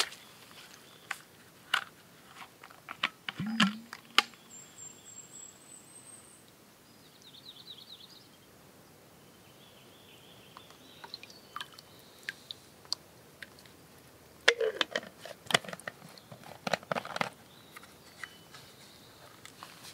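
Boots crunching on twigs and dry forest litter for the first few seconds, then a quiet stretch with birds chirping. Later comes a run of clicks and knocks as a plastic water bottle is handled and its cap screwed on.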